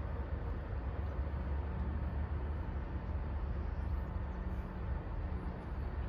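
Steady low outdoor rumble of city background noise, with no distinct events.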